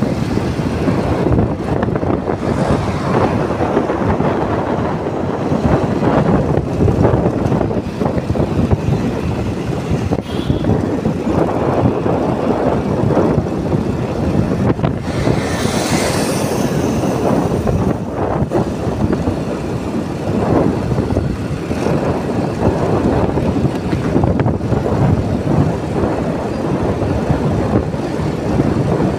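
Wind buffeting on the microphone of a moving motorcycle, mixed with the bike's running engine and tyre noise, steady and rough throughout. A brief hiss comes about halfway through.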